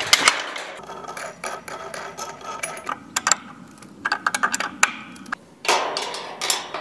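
Hand wrenches clicking and clanking on the steel hinge and gate-opener bracket bolts of a metal farm gate: a string of sharp metallic knocks, some briefly ringing.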